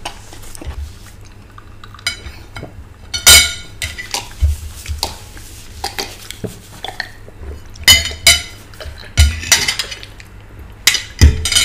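Metal forks scraping and clinking against china plates as the last of the food is cleared, with several sharp clinks spread through.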